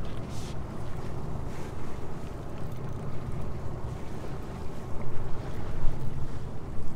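Steady low rumble of wind buffeting the microphone on an offshore fishing boat, with sea and boat noise beneath it.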